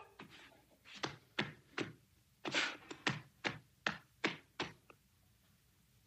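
A seal clapping its flippers together: about ten sharp slaps at an uneven pace, two or three a second, stopping about five seconds in.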